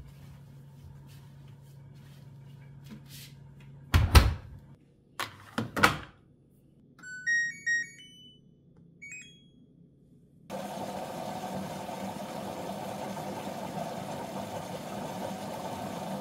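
Rustling as a blanket is stuffed into an LG front-loading washing machine, then two loud thumps as the door is shut. A run of short electronic beeps, stepping up in pitch, comes from the control panel as its buttons are pressed, and about ten seconds in a steady rushing sound sets in as the machine starts its cycle.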